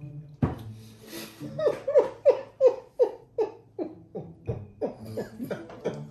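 A woman laughing in a run of short bursts, each falling in pitch, about three a second, growing softer toward the end.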